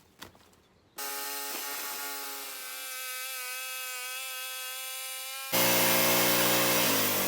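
Portable band sawmill running: a steady, high-pitched machine whine starts suddenly about a second in and gets much louder and deeper a few seconds later, with its pitch falling near the end.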